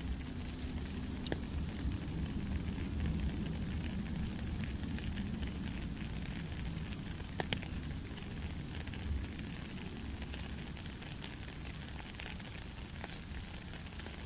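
Steady white-noise sleep sound for a baby: an even hiss over a low rumble, with scattered faint crackles and clicks and one sharper click a little past the middle.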